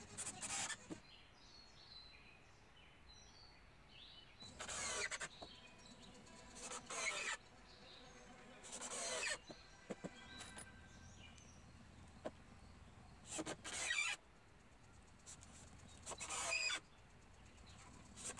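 Cordless drill-driver running in short bursts, about seven in all, driving screws into the wooden boards of a bench.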